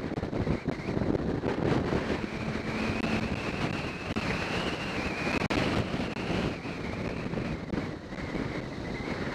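Motorcycle riding at road speed: wind rushing over the microphone with the engine running underneath, and a faint high whine that climbs a little midway and drops back near the end.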